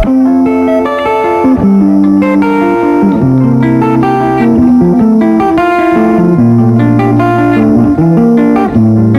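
Background music: an instrumental track led by plucked guitar over a bass line.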